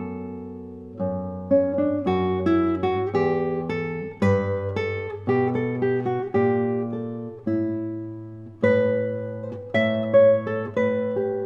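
Solo nylon-string classical guitar playing a slow adagio: plucked chords and single notes over held bass notes, each note ringing and then dying away.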